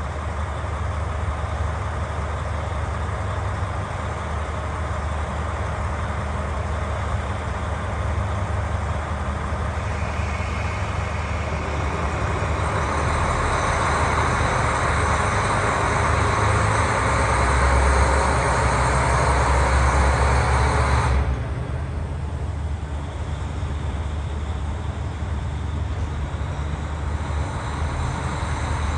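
JR Hokkaido KiHa 40 diesel railcar idling in the station, a steady low engine rumble. A louder, hissier stretch in the middle cuts off abruptly about two-thirds of the way through.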